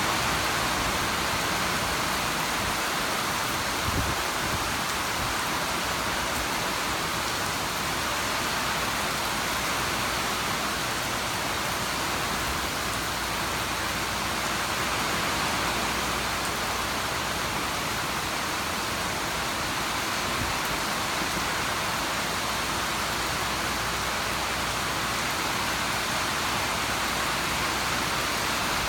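Steady rain falling, an even hiss of drops with a brief low thump about four seconds in.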